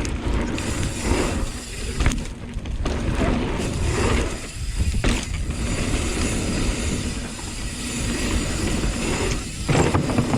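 Hardtail mountain bike ridden fast over dirt jumps: wind rumbling on the microphone over tyre noise on dirt, with the bike clattering on landings, sharpest about two, five and nine and a half seconds in.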